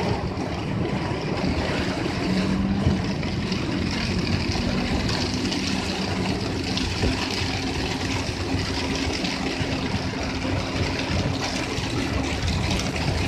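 Car interior while driving in heavy rain: steady engine hum and wet-road tyre noise, with rain spattering on the windshield and roof.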